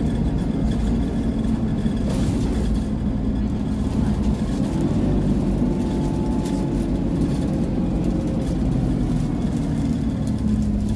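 Alexander Dennis Enviro200 Dart bus's diesel engine running under way, heard from inside the passenger saloon as a steady low drone. Its note rises slightly about five seconds in, with a faint whine joining it.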